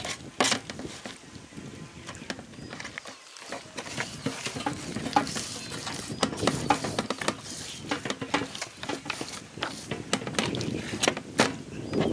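Hands massaging a wet spice marinade into skinned whole rabbits on a steel plate: squishing and slapping of raw meat, with many short sharp pats and clicks.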